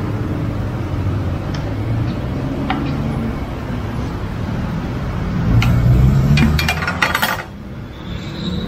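Light metallic clinks and clicks of tools being handled during motorcycle tire work, with a cluster of them about two-thirds in, over a steady low rumble of road traffic that swells as a vehicle passes.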